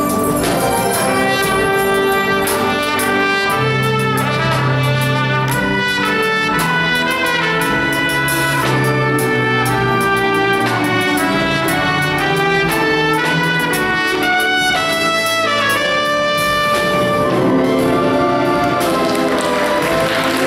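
Live high school orchestra playing, with the brass section to the fore.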